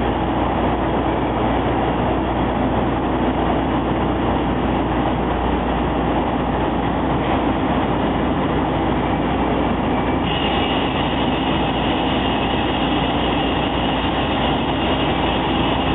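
Automatic double-head vertical glass drilling machine running with a steady mechanical hum and rush. About ten seconds in, a higher, hissing whine joins it.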